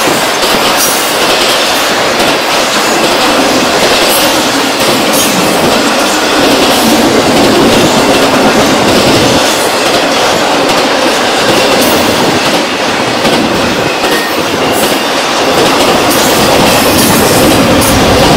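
Norfolk Southern intermodal freight cars loaded with containers and trailers rolling past, a loud steady rumble with wheels clicking over the rail joints.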